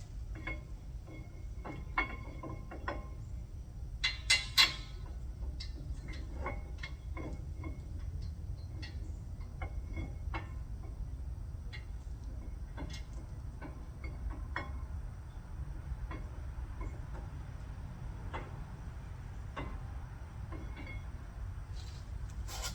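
Irregular metallic clicks, taps and clinks of hand tools and brake hardware being handled while a caliper bracket is fitted, over a steady low hum. The sharpest clinks come in a short cluster about four seconds in.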